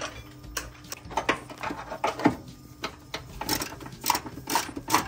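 Irregular metallic clicks and knocks of hand tools and a socket extension working on bolts in a car's engine bay, a few sharp clanks spaced about half a second to a second apart, closer together near the end.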